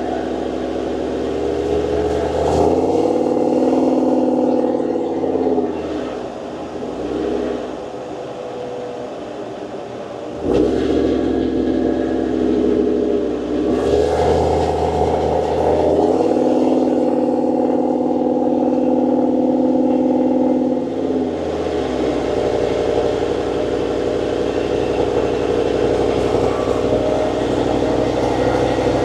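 A 6.2L LS3 V8 with a hot cam, fitted in a Humvee, heard from inside the cab while driving. The engine note rises and falls several times under throttle, with a sudden louder surge about ten seconds in, then holds a steady pitch at cruise near the end.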